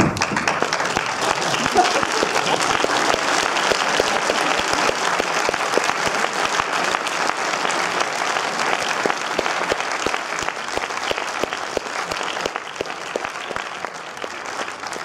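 Audience applauding: dense clapping from many people that starts abruptly and thins out near the end.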